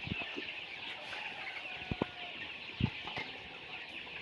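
A flock of 36-day-old Sonali super hybrid chickens clucking and chattering together as a steady mass of high calls, with a few light knocks.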